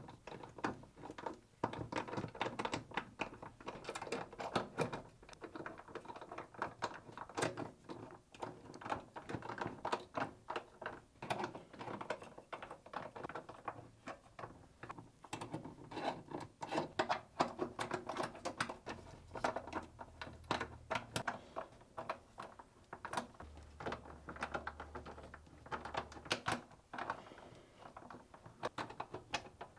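Hand ratchet clicking in quick runs while the clutch assembly's mounting bolts are tightened in a cross pattern, with short pauses between bolts.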